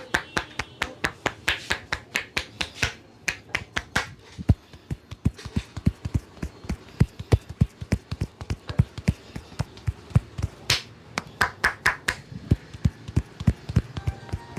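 Rapid rhythmic hand percussion of a massage: palms and fingers slapping and tapping on the body, about four strikes a second. The strikes are crisp slaps at first, turn to duller thuds about four seconds in, and come back to brighter slaps near the end.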